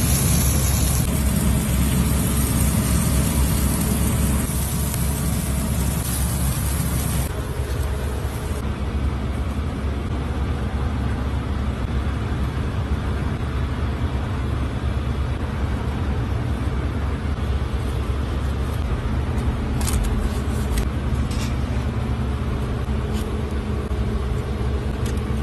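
Steady low rumble of background noise, with a brighter hiss over it for the first seven seconds or so that cuts off abruptly.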